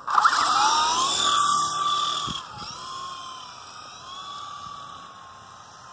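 Toy remote-control helicopter's small electric motor and rotors whining, the pitch rising as it spins up, then holding nearly steady. The whine grows fainter after about two and a half seconds.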